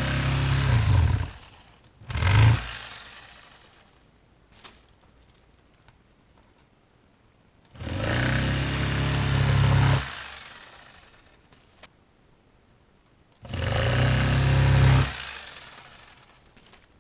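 Rapala electric fillet knife running in short bursts as it cuts the rib bones out of bluegill fillets. It buzzes once at the start, briefly about two seconds in, then for about two seconds each time near the middle and again near the end. Each burst trails off as the knife stops.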